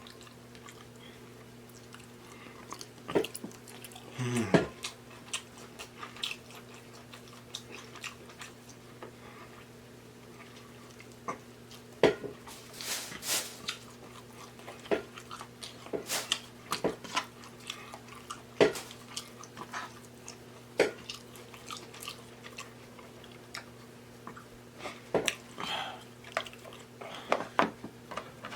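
A person chewing and biting seafood close to the microphone, with scattered sharp clicks, smacks and short crunchy bursts, the strongest about four seconds in and around twelve to thirteen seconds in. A steady low hum runs underneath.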